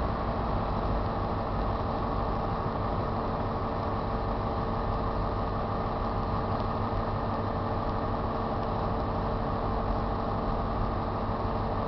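Diesel engine of a Class 43 HST power car idling steadily close by, a constant engine drone with a fixed hum.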